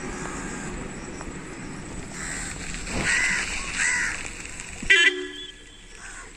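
Crows cawing twice, about three and four seconds in. A short, loud vehicle horn toot about five seconds in, over a steady low background rumble.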